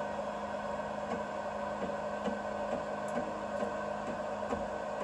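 BIBO Touch X dual-extruder 3D printer printing: a steady hum and whine from its stepper motors and cooling fans, with light irregular clicks. The owner hears something wrong in the sound and suspects a leveling problem with one of the extruders.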